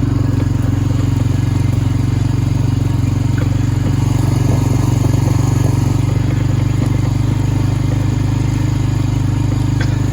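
Four-wheeler engine running steadily at an even pitch.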